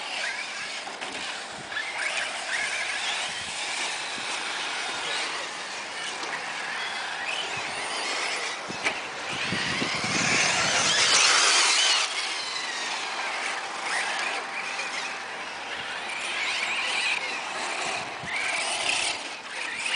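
Radio-controlled truck running around a course, its motor and gears whining, the pitch rising and falling with speed. It is loudest from about ten to twelve seconds in.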